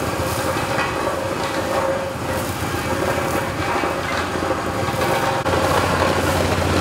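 An engine running steadily, a continuous mechanical hum with a fine rapid pulse, which shifts slightly about five seconds in.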